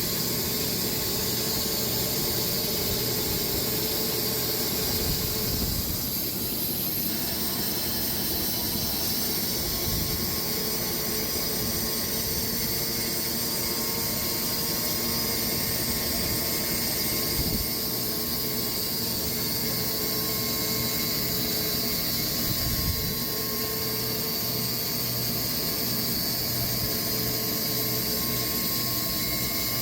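Sawmill running steadily through a cut in a Bastogne walnut log, with a few brief low thumps.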